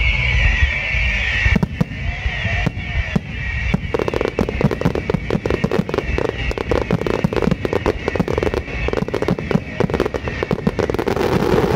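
Aerial fireworks display: a run of bangs and crackles that thickens from about four seconds in into a dense, rapid crackling barrage.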